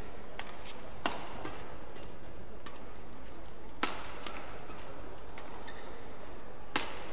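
Badminton rackets striking the shuttlecock in a doubles rally: sharp cracks one to three seconds apart, with fainter taps between, the loudest a smash near the end, over steady arena ambience.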